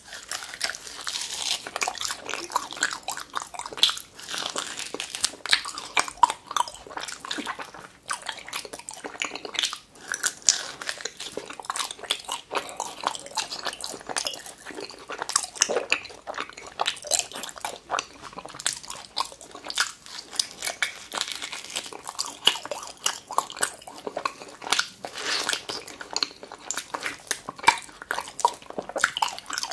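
A person biting and chewing slices of raw tuna, with many short, sharp mouth clicks throughout.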